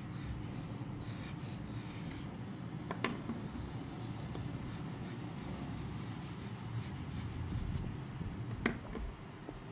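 Dry pastel and fingertip rubbing on paper: a steady, scratchy rub as a green pastel stick colours a leaf and a finger blends it. Two light ticks, about three seconds in and near the end.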